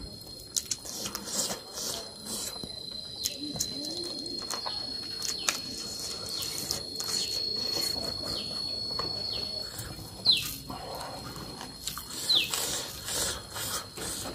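Close-up eating sounds: wet chewing and lip-smacking with many short clicks, and fingers working rice on a steel plate. Birds call outside with a few quick falling chirps in the second half, over a steady thin high-pitched tone.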